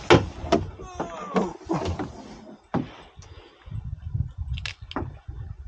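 A run of sharp knocks and clicks from handling fishing gear on a small boat, about eight in all, with a low choppy rumble through the second half.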